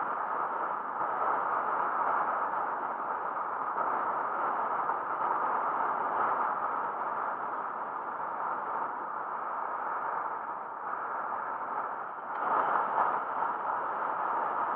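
Steady rushing wind and road noise on the camera microphone of a road bike riding at speed; it swells briefly about twelve and a half seconds in.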